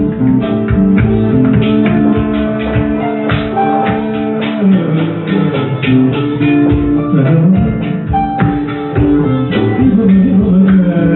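Live fusion music: a male vocalist sings long held notes over plucked guitar, harp and hand drums, the melody shifting about halfway through.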